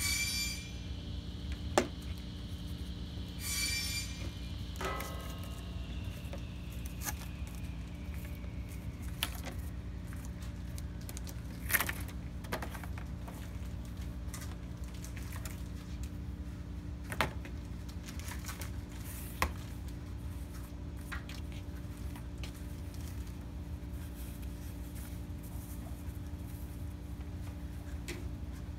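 Occasional sharp knocks and clicks of a solid-wood, glass-fronted picture frame and its backing board being handled and opened on a table, over a steady room hum.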